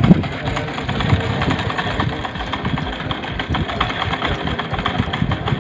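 Wooden well pulley turning under the hauling rope, with a steady low rumble and many small irregular knocks.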